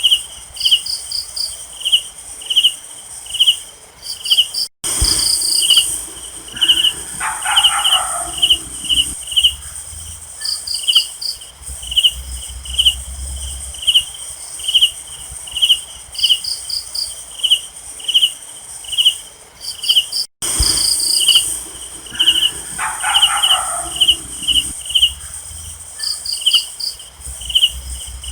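Night insect chorus: a cricket chirping steadily, about one and a half chirps a second, over a constant high insect hum, with short high trills in between. A lower call sounds twice, and a brief dropout twice shows that the recording is looped.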